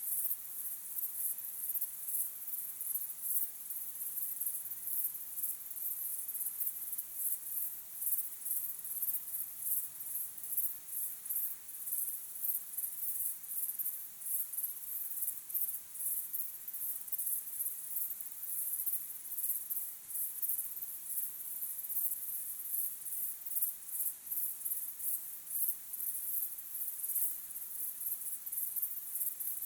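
Crickets chirping in a steady chorus of rapid, high-pitched pulses.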